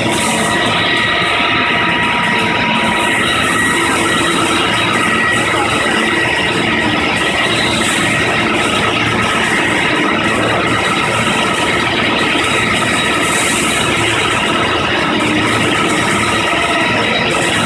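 Industrial Dixie meat slicer running with its outfeed conveyor belt moving: a steady, loud mechanical noise with a faint high whine over it.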